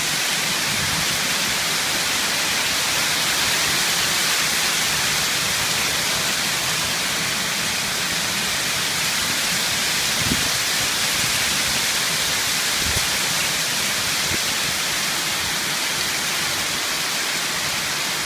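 Heavy hailstorm: a dense, steady hiss of hailstones pelting down and striking the ground, with a couple of dull thumps about ten and thirteen seconds in.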